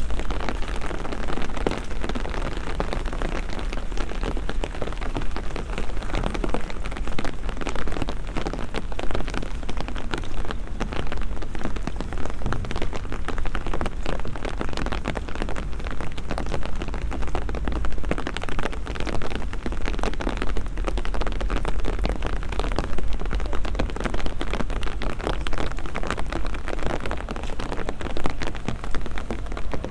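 Steady rain falling, a dense crackle of drops, with a low rumble underneath.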